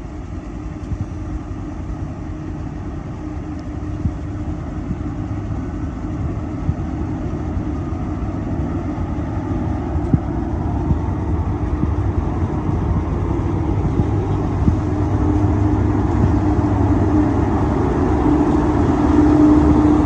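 A motor vehicle engine running steadily and growing gradually louder, with a steady hum that strengthens toward the end.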